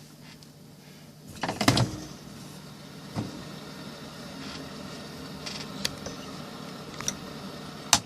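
Cassette player being handled and started: a loud cluster of clunks and clicks about a second and a half in, then a few single clicks over a steady low hum and hiss.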